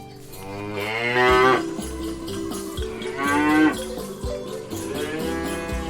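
A cow mooing three times, each moo long and drawn out.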